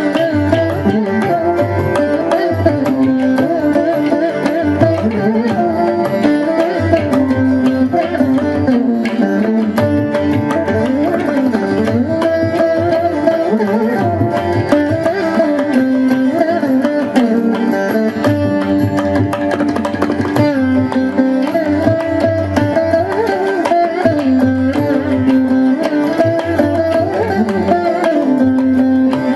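Carnatic veena music with sliding, bending melody notes over a drone, accompanied by hand-drum percussion.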